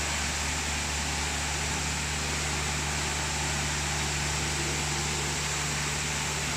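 Christ Varius gantry car wash running, a steady machine hum under an even hiss.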